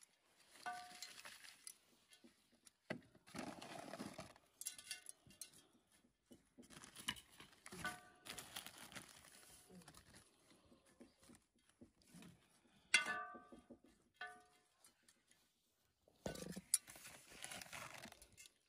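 Metal hand trowel scraping and digging through potting compost in a cast-iron garden urn, in separate bursts. Now and then the blade clinks against the iron bowl with a short ring.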